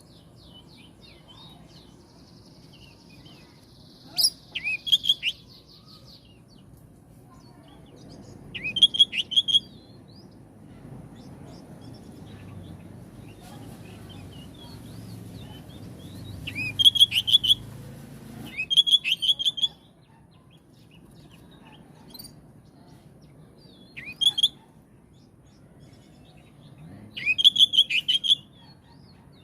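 Oriental magpie-robin (kacer) singing in short, loud bursts of rapid repeated notes, about six bursts a few seconds apart, over a faint low rumble.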